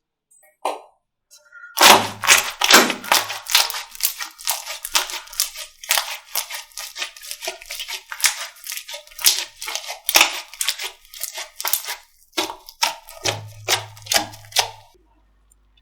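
Slime being squeezed and poked, giving a long run of sharp, uneven crackling pops and clicks that starts about two seconds in and stops near the end.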